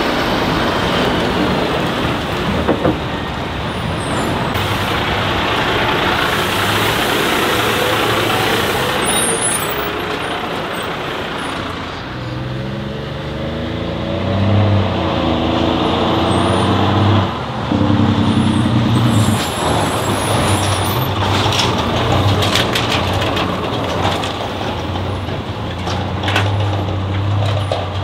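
Heavy Tatra off-road trucks driving on dirt tracks. First comes a dense rush of tyre and road noise as a truck passes close. From about halfway a diesel engine is heard, its note rising and falling in steps as it pulls. Near the end there are scattered sharp knocks and clatters.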